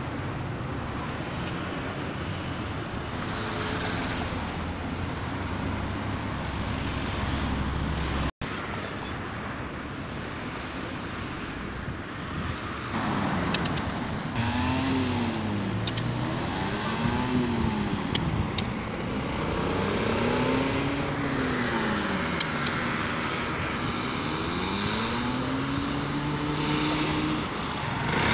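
Road traffic and vehicle running noise heard from a moving vehicle. In the second half a pitched drone swells up and down in pitch again and again, about two seconds per swell. The sound drops out briefly about eight seconds in.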